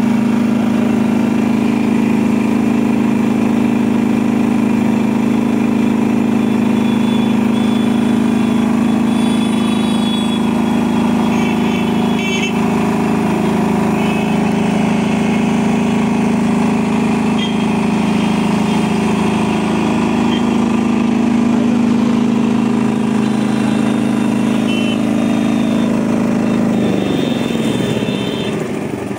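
Air-cooled single-cylinder 186F diesel engine of a 5.5 kVA generator running steadily inside its soundproof canopy, a loud even hum. Near the end its pitch falls and the level dips briefly.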